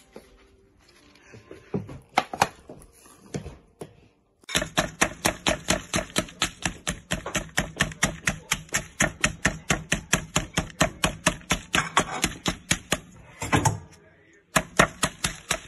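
A rolling pin pounding a pork cutlet through baking paper on a wooden chopping board, flattening and tenderising the meat for tonkatsu. A few scattered knocks come first. Then a fast, even run of thuds at about five a second goes on for some nine seconds, breaks off briefly, and starts again near the end.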